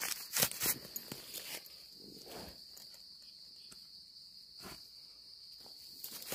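Dry leaf litter rustling and crackling as termite mushrooms are picked by hand, with the loudest crackles in the first second and another near the end. A steady high-pitched insect drone carries on underneath.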